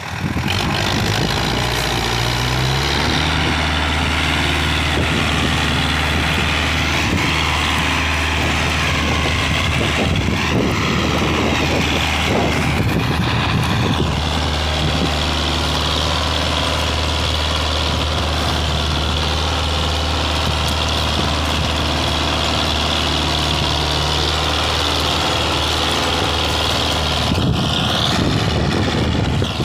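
Tractor's diesel engine working hard, pulling a heavily loaded trailer. Its pitch rises about two seconds in, then holds steady.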